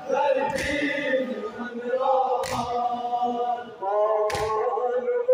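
A group of men chanting a Kashmiri noha lament in chorus, with sustained, sliding sung lines. A sharp thump cuts across the voices three times, about every two seconds.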